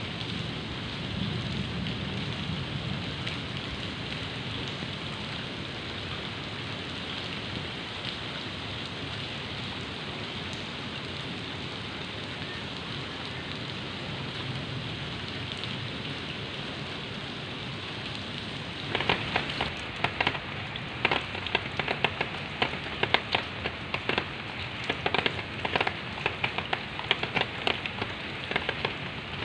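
Steady rain falling, an even hiss. From about two-thirds in, irregular sharp taps of raindrops striking an umbrella canopy come in over it, louder than the hiss.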